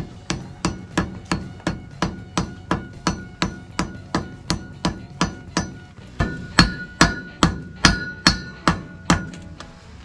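Hammer blows on white-hot mild steel on an anvil, forge welding the fluxed end of a bundle of steel rods together: a steady run of about three strikes a second, growing heavier and ringing in the second half, stopping about a second before the end.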